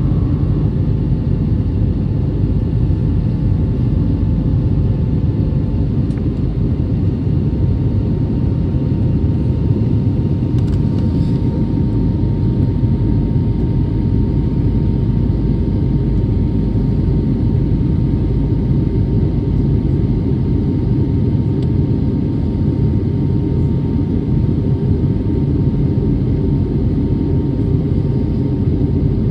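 Airbus A320neo airliner, heard from inside the cabin: a steady low rumble of engines and airflow with a faint steady whine above it.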